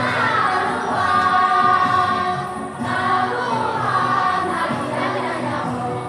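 Taiwanese folk song sung by a group of voices together as dance music, with a brief break between phrases a little before halfway.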